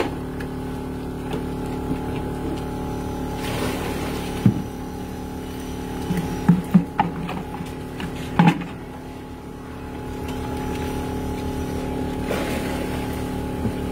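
Small motorcycle engine idling steadily, with a few short knocks and clatters from the metal carrier rack being handled. The engine gets a little quieter for a couple of seconds past the middle, then comes back up.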